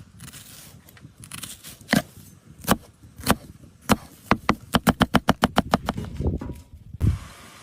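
Knife chopping on a cutting board: a few single strikes spaced about half a second apart, then a quick run of about eight chops a second lasting a second and a half, and one more knock near the end.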